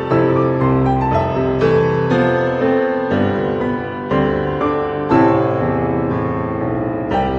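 Gentle instrumental background music, a melody of separate notes starting about every half second.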